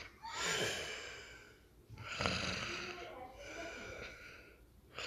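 A person's voice making snoring sounds: two long, breathy snores about two seconds apart, followed by fainter sounds.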